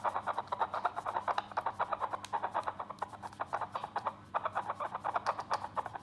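Handheld fetal Doppler's speaker giving a rapid, crackling, pulsing whoosh while the probe is pressed and moved against a palm instead of a belly. It breaks off briefly about four seconds in, then resumes.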